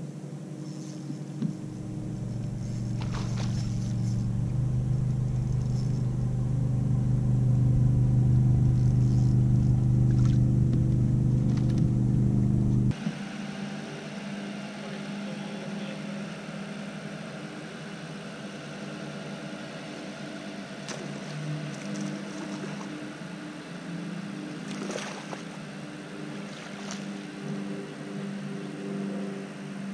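A steady, low motor hum that grows louder over the first several seconds, then drops suddenly about thirteen seconds in to a quieter hum, with a few faint clicks.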